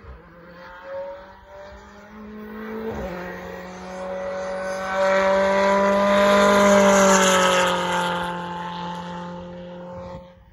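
A BTCC touring car's turbocharged engine passing at racing speed. It grows louder with its note climbing, after a sharp crack about three seconds in, then peaks and falls in pitch as it goes by and fades.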